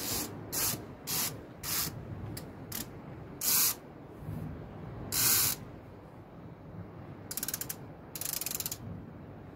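Sea-fishing reel being worked as the rod is set in its rest: a series of short hissing bursts, then two spells of rapid ratchet clicking about seven and eight seconds in.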